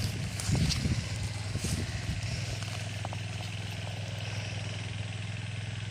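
Sendaren kite hummer droning steadily in strong wind: one low, even hum with a wind rush under it.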